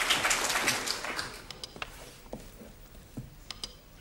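Studio audience applause dying away in the first second or so, then a few scattered light taps.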